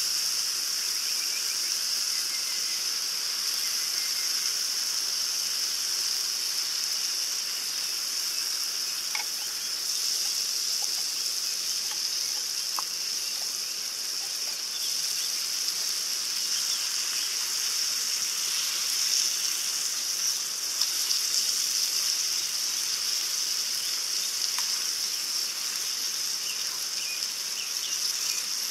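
Corned beef sizzling in a frying pan on a gas camp stove: a steady hiss that swells and eases, with occasional small crackles and pops.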